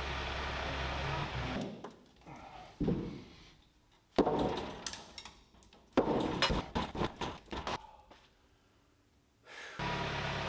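Heavy timber being knocked into a tight fit: single hard blows, then a quick run of several knocks on wood. A steady machine noise runs at the start, drops away, and comes back near the end.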